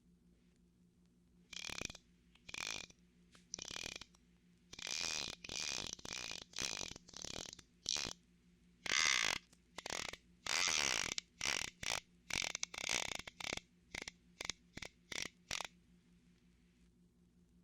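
Fishing reel whirring and ratcheting in a series of short spurts with brief pauses between, as it is cast and wound.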